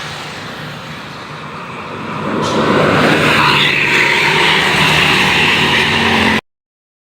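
Road traffic with a motor vehicle passing close: the engine and road noise grow louder about two seconds in and hold, then the sound cuts off abruptly near the end.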